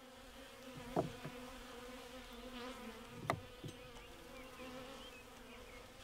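Honey bees buzzing, a faint steady hum from the open hive and the frames of bees being moved. Two light knocks, about a second in and just past three seconds, from the wooden hive frames being handled.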